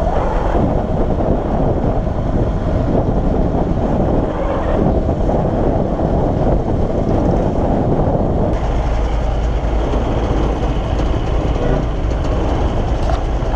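Bajaj Pulsar NS200 motorcycle being ridden: a steady rush of engine, road and wind noise, with the low rumble growing a little stronger past the middle.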